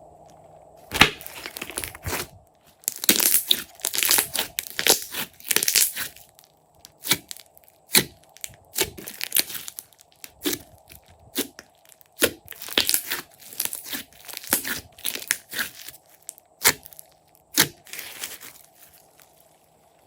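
Slime being squeezed, stretched and pressed by hand, giving irregular bursts of crackling, popping and crunching from about a second in.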